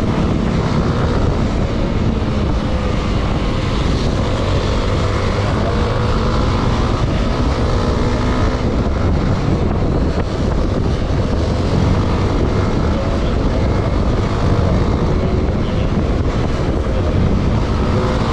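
Motorcycle engine running at speed under a heavy rush of wind on the microphone, its pitch drifting up and down.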